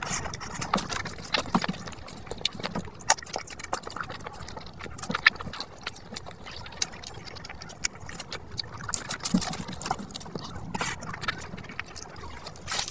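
Close-miked eating sounds: wet chewing, lip smacks and mouth clicks as mouthfuls of rice and fish are eaten by hand. The clicks come irregularly and often.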